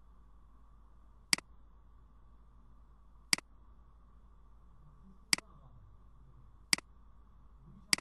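Computer mouse button clicking five times, each a sharp double click of press and release, about two seconds apart, with the last two coming closer together; a faint steady hum lies underneath.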